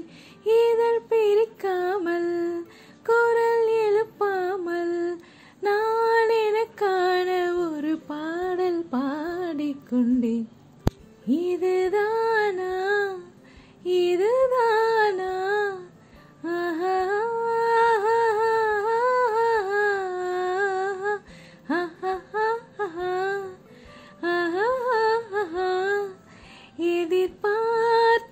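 A woman singing a Tamil film song solo and unaccompanied, in long held, wavering phrases with short pauses for breath.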